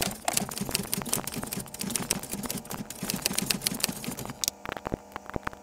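A fast run of sharp clicks and light taps, several a second, that thins out to a few scattered clicks about four and a half seconds in.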